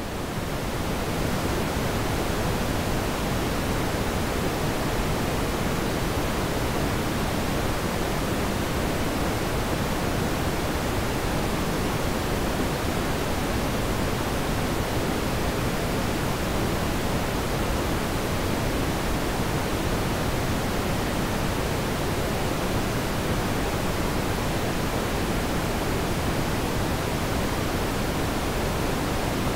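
Steady rushing road and wind noise of a car being driven, an even hiss with no engine note or knocks standing out. It swells up over the first second, then holds level.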